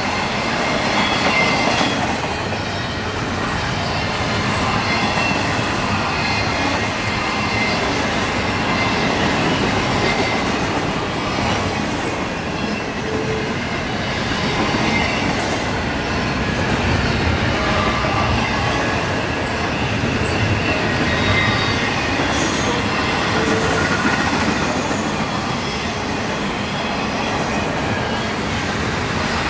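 Norfolk Southern freight cars rolling past on the rails: a steady, loud rolling noise of steel wheels on track, with faint high squealing tones from the wheels.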